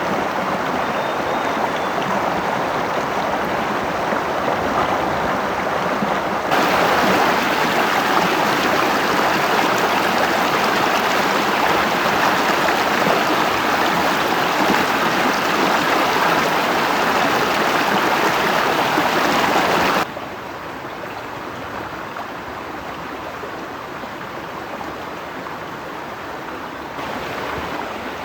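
Rushing water, a steady noise that jumps abruptly louder about six seconds in and drops back abruptly at about twenty seconds.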